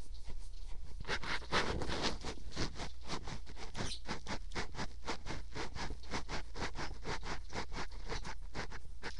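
A cat playing close to the microphone makes a fast, even run of rasping, scratch-like strokes, about five a second, starting about a second in.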